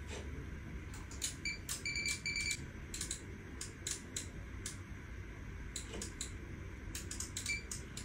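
Scattered sharp computer-mouse clicks and a few short electronic beeps, three in quick succession about a second and a half in and one more near the end, over a low steady hum of bench test equipment.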